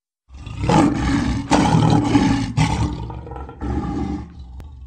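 Recorded lion roar used as a sound effect: a loud, rough roar starting abruptly, surging three times in the first three seconds, then a shorter final roar about three and a half seconds in that fades out.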